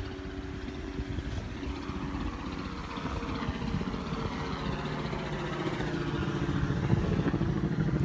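A motor engine droning steadily, its hum growing louder toward the end as it comes closer.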